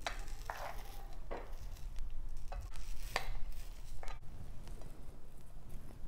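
Pizza-cutter wheel rolling through a thin omelet and scraping across the plate beneath: about five short cutting strokes.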